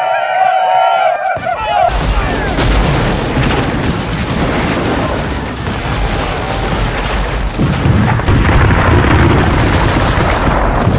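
A chorus of high, wavering yells cuts off about a second and a half in. It gives way to a dense battle din of massed musket volleys and cannon fire: continuous gunshots and deep booms.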